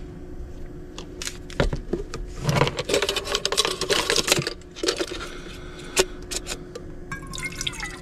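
Clicks and a stretch of clattering as a Jetboil cooking cup is handled and its lid taken off. About seven seconds in, water starts pouring from an insulated bottle into the cup, its pitch rising as the cup fills.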